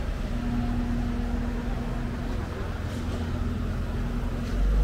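A vehicle engine running with a steady low hum, growing louder near the end.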